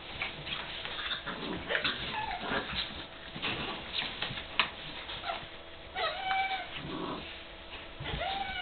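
Seven-week-old puppies playing rough: a few short high whines and yips, one near the end rising then falling, with scuffling and small knocks between the calls.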